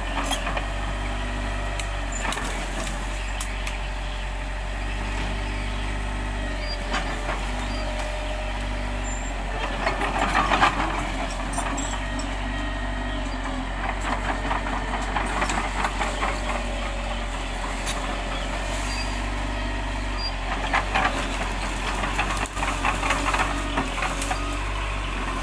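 Bulldozer's diesel engine running steadily under load, with stretches of louder metallic clatter about ten seconds in, again around fifteen seconds, and near the end.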